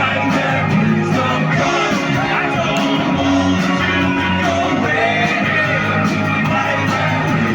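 Live rock band playing, with a lead singer's voice over electric guitars and drums.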